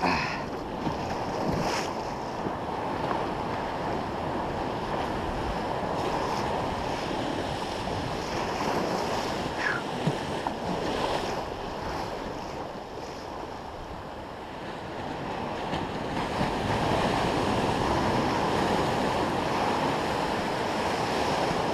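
Ocean surf washing and breaking around the legs of someone wading, with wind buffeting the microphone. The wash dips a little midway and swells louder over the last few seconds.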